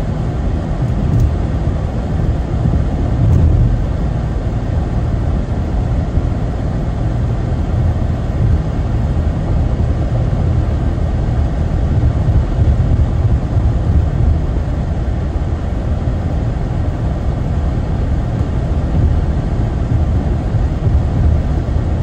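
Steady road and engine noise inside the cabin of a car driving at highway speed, a low rumble with a hiss of tyres and wind above it.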